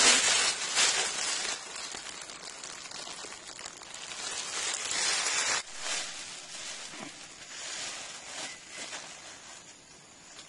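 Thin plastic bag crinkling as it is handled, loudest in the first second and a half and again about four to five seconds in, then dying down to faint rustling.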